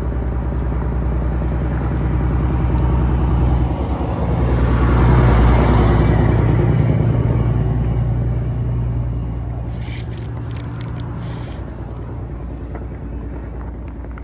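A motor engine passing close by, a vehicle or boat: its steady low hum grows louder to a peak about five seconds in, then fades away. A few light clicks about ten seconds in.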